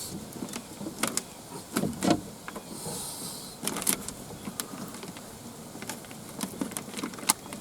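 Scattered sharp plastic clicks and rattles as the wiring connector on a car door's power-window motor is worked free by hand, with a short hiss about three seconds in.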